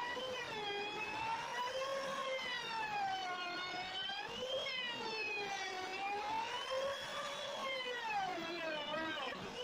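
Homemade CNC router running: a steady motor whine that glides up and down in pitch every second or two while the spindle carriage travels back and forth along its threaded-rod drive.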